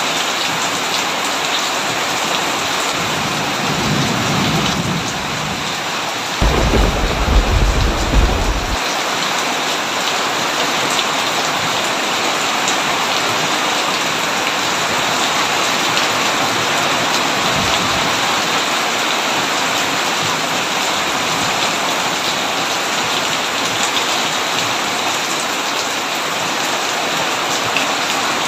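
Heavy rain falling steadily on a tin roof. A low rumble of thunder comes about four seconds in, and a louder thunderclap about six and a half seconds in cuts off suddenly two seconds later.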